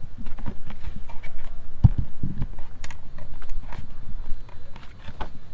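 Irregular light clicks and knocks of a screwdriver and small metal screws being handled while undoing the headlight bezel's T10 screws, with a couple of dull thumps about two seconds in.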